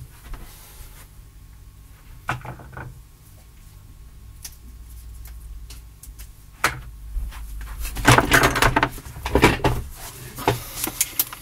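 Small parts and tools being handled on a workbench: scattered clicks, knocks and rattles, busiest about eight to nine seconds in, over a faint steady hum.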